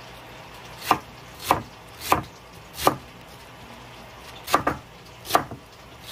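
Knife shredding a cabbage wedge on a wooden cutting board: about seven crisp cuts through the leaves, each ending in a knock of the blade on the board, roughly one every half second with a pause of over a second in the middle.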